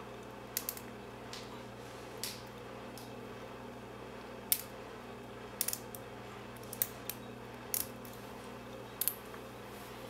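Lock pick and tension wrench working the pins of a brass pin-tumbler padlock during single pin picking: light, irregular metallic clicks and ticks, about a dozen, the sharpest about halfway through, over a steady low hum.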